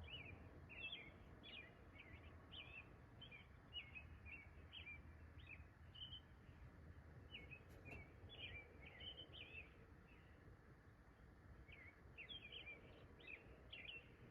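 Faint bird song: runs of short, quick chirping notes, pausing for about two seconds a little past the middle before starting again, over a low steady rumble of background noise.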